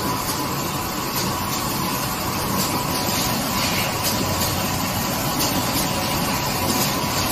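Steady drone of a running automatic screen printing machine, with faint steady tones and a brief hiss about halfway through.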